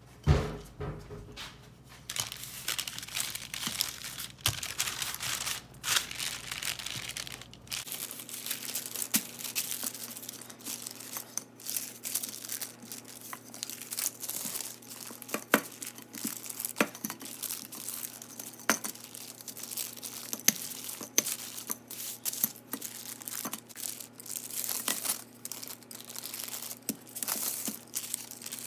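Parchment paper crinkling and rustling in irregular crackles as pie dough is worked flat between two sheets, with a single sharp knock right at the start.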